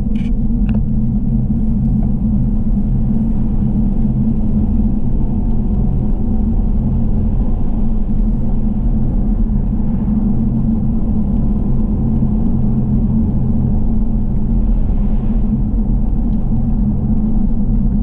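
Steady low rumble of a car being driven, engine and road noise, with two faint clicks about half a second in.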